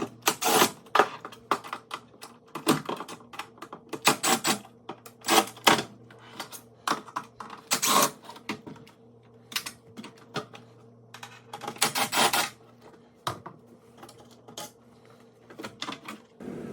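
Irregular sharp clicks and clattering knocks of hand tools and dishwasher panel parts being handled, some in quick runs, over a faint steady hum.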